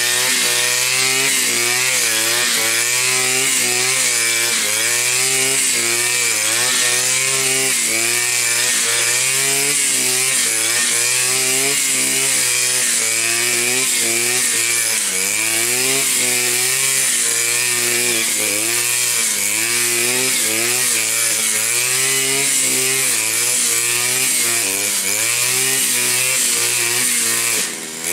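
Blade Alpin 520 two-stroke brush cutter running hard, its metal blade cutting thick tall grass. The engine pitch sags and recovers about once a second as each sweep loads the blade. The sound dips briefly near the end.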